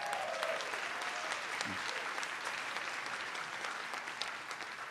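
A large audience, about a thousand people, clapping, with the applause easing off near the end.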